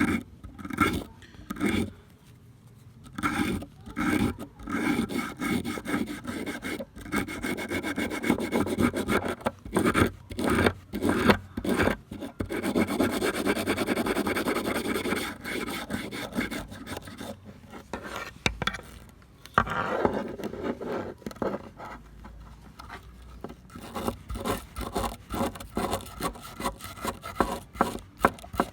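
Repeated hand-filing or abrading strokes on an old rusty plier, back and forth, with a stretch of continuous rubbing about halfway through.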